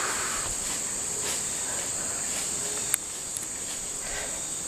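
Insects chirring in one steady, high-pitched, unbroken drone, with a single sharp click about three seconds in.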